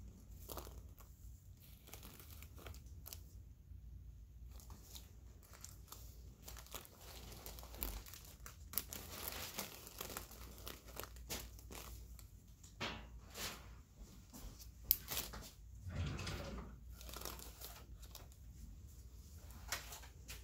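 Faint, irregular crinkling and rustling close to the microphone from the paper drape and gloved hands while a surgical wound on the ear is being stitched.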